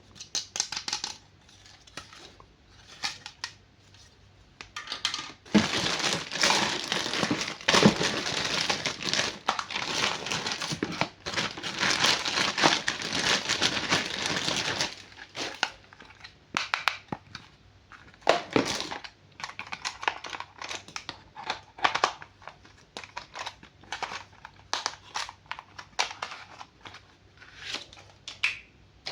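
Packaging crinkling and crackling as it is handled and pulled open. A dense stretch of steady crinkling in the middle gives way to scattered crackles.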